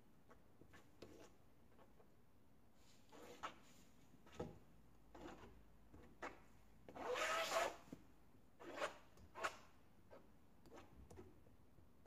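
Scattered faint knocks and rubbing from handling painting tools and supplies, with a longer, louder scrape about seven seconds in.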